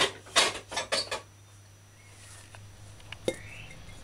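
A knife and a glass bowl clinking and clattering on a counter: a quick run of knocks in the first second or so, then a few lighter clicks.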